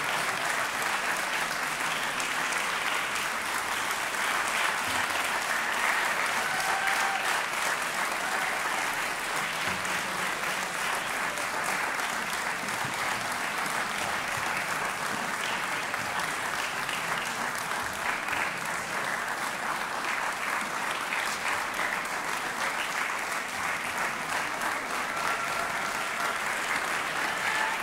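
A concert hall audience applauding steadily and at length.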